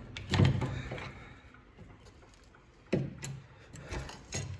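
A few sharp knocks and clicks, spaced irregularly, from tools being handled during a brake job.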